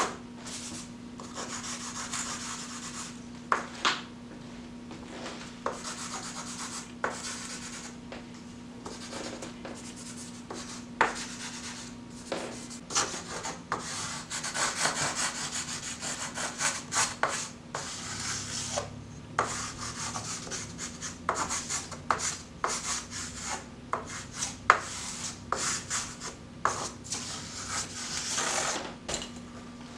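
Chunk of homemade wood charcoal scraping and rubbing across brown paper in short, irregular strokes, over a steady low hum.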